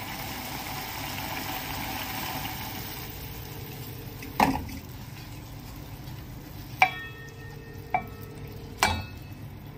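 Wooden spatula stirring hot jaggery syrup and ghee in a steel pan just taken off the heat, the syrup sizzling softly and easing off. Four sharp knocks in the second half as the spatula strikes the pan.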